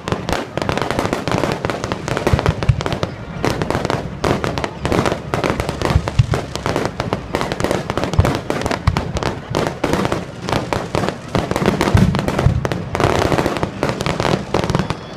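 Aerial fireworks bursting in a dense, unbroken barrage, booms and crackles overlapping with no pause.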